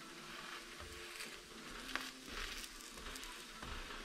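Pizza Pops frying in olive oil in a nonstick skillet, sizzling faintly, with a few light clicks and scrapes of a plastic spatula against the pan.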